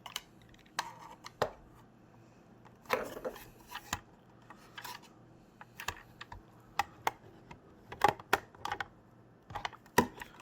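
Small hard plastic parts of a car cupholder arm assembly clicking, tapping and scraping as they are worked apart by hand and with a screwdriver, in irregular bursts with pauses between.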